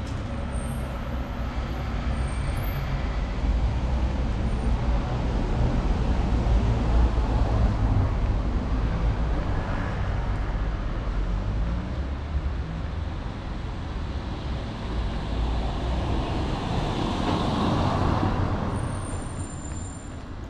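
Street traffic: motor vehicles passing close by, a low engine rumble that swells about a third of the way in and again near the end as another vehicle goes by. A few faint high bird chirps near the start and near the end.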